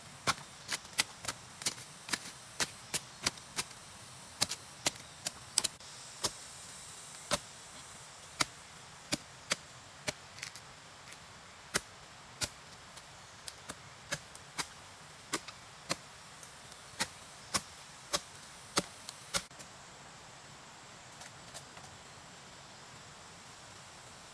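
Repeated chopping: a blade striking in sharp, irregularly spaced blows about twice a second, thinning to a few light taps after about twenty seconds.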